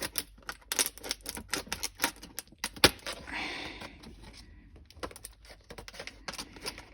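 Stiff plastic clamshell packaging being worked open by hand: a run of irregular sharp clicks and crackles, with one louder snap about three seconds in and a brief rustle just after.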